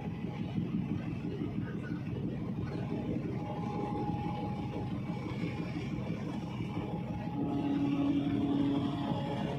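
Steady low rumble of a large ro-ro passenger ferry's engines as it manoeuvres slowly alongside a pier. A steady low tone joins about three-quarters of the way through.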